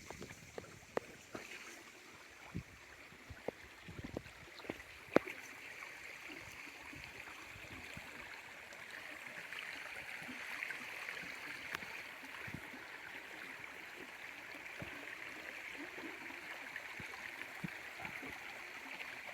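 Small garden waterfall splashing and trickling steadily, a little fuller from the middle on. A few sharp clicks come in the first five seconds, the loudest about five seconds in.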